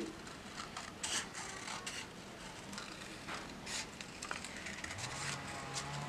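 Scissors snipping through paper in short, irregular cuts, with the paper rustling. About five seconds in, a low steady tone comes in.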